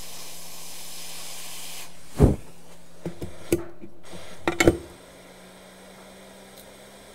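Hot air rework station blowing a steady hiss onto an iPhone 6 logic board, reflowing the solder of a new backlight coil; the airflow stops about two seconds in. A loud knock follows, then several clicks near the middle, and after them only a low steady hum is left.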